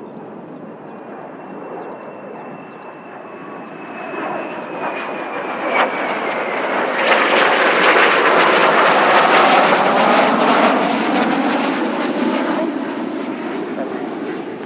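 Kawasaki T-4 jet trainers' twin turbofans passing overhead. First comes a thin whine that slides down in pitch. Then a rushing jet noise swells to its loudest about halfway through and slowly fades away.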